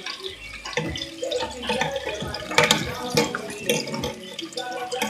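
Water running, as from a kitchen tap, with a few sharp knocks.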